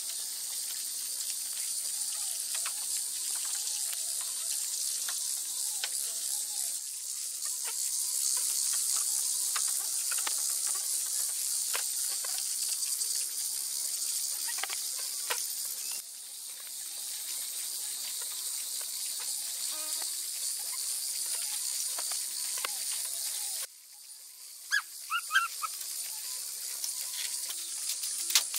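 Night insects chirring in a steady high-pitched chorus. The chorus cuts off abruptly near the end, and a few short sharp sounds follow.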